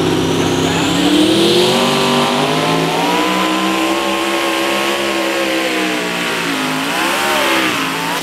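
Twin-turbocharged small-block V8 of a mini rod pulling tractor revving up about a second in and held at high revs as the tractor launches into a hook on the sled. A turbo whistle rises over the first second or two, and the revs dip twice briefly near the end.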